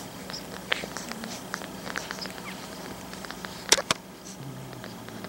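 Newborn pug puppies making small squeaks and grunts, with soft clicks throughout. Two sharp clicks close together come about three and a half seconds in.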